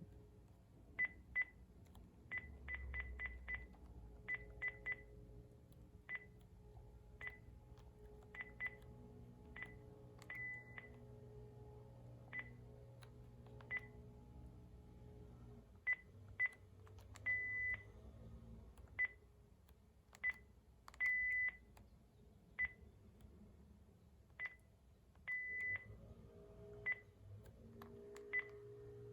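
Key beeps from a Panasonic KX-TG5432M cordless phone handset as its buttons are pressed through the settings menu: short, high single-pitch beeps at an uneven pace, some in quick runs, with a few longer beeps.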